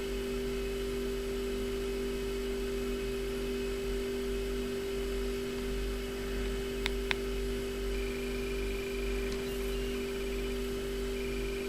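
Steady electrical hum, with two short clicks in quick succession a little past halfway through.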